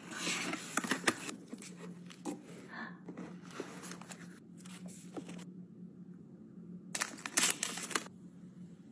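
Packaging being handled and opened: rustling and crinkling with light clicks and taps, and a louder rustle near the end, over a faint steady low hum.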